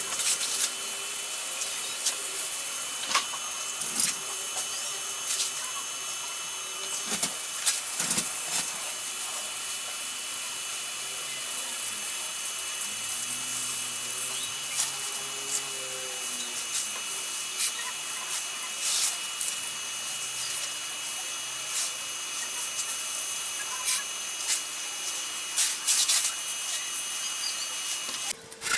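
Old sewing machine running: a steady mechanical whir with scattered sharp clicks, its pitch rising and falling a few times.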